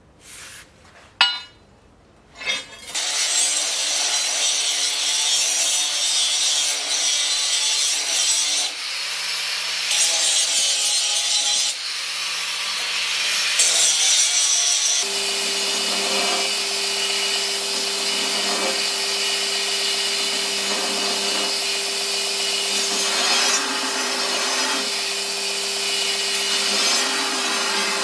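An electric grinder running against the steel of a sword blade, a continuous loud abrasive hiss over a motor hum, starting about three seconds in after a few light knocks. The hum becomes higher and stronger about halfway through.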